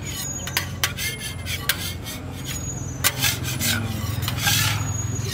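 Metal spatula scraping across a steel griddle in several short rasping strokes, with sharp clicks where the blade knocks the plate, over a steady low hum.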